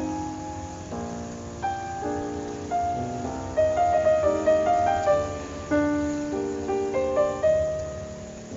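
Background music: a gentle piano melody over sustained chords.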